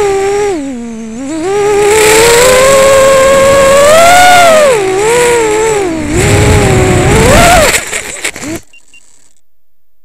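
FPV racing quadcopter's brushless motors and propellers whining, the pitch rising and falling with the throttle and dipping low about a second in. From about six seconds in the quad tumbles into grass, the props thrashing roughly through it with a last rise in pitch. The motors cut off at about eight and a half seconds, leaving only a faint hiss.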